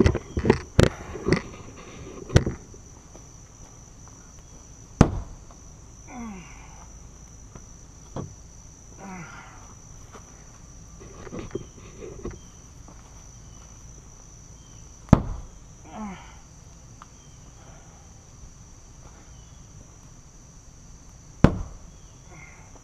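A Glock field knife is thrown into an OSB plywood board three times, each hit a single sharp thunk, the last one near the end. A steady high insect drone runs underneath, and there is some knocking and handling near the start.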